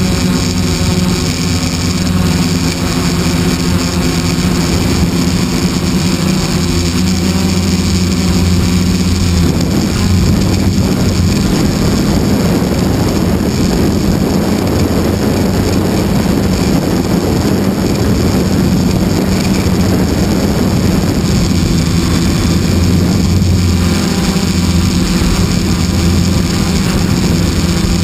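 RC ring-wing model airplane's engine running steadily, heard close up from a camera mounted on the plane. From about ten seconds in the sound turns rougher with rushing air as the plane takes off and flies, and the steady engine note comes through more clearly again near the end.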